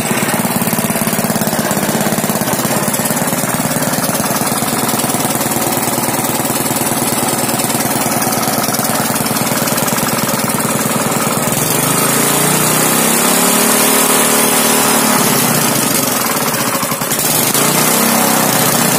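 Honda GX200 single-cylinder four-stroke engine on a water pump running steadily after a rebuild with new piston rings. Its speed shifts for a few seconds about two-thirds of the way through, then steadies.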